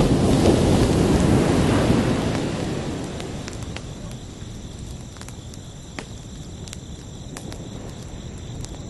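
An ocean wave breaking, loudest in the first two seconds, then fading into a softer wash of surf. Crickets chirp steadily at a high pitch over it.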